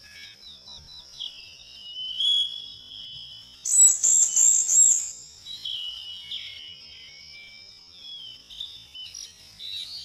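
Several birds singing: whistled phrases and trills over a steady high-pitched drone. About four seconds in comes the loudest part, a quick run of repeated high notes lasting about a second.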